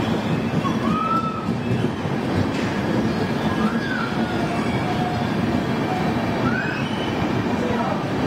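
Indian Railways passenger coaches rolling slowly along the platform, a steady rumble of wheels on rails. Three brief, faint wheel squeals rise and fall over it.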